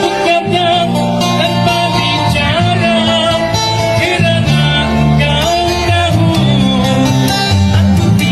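A man singing a Malay ballad with guitar accompaniment, holding long wavering notes over a steady bass line.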